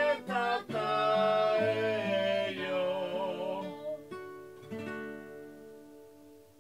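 Music: a singing voice holds a long final note over strummed acoustic guitar, then a couple of last strums ring out and fade away.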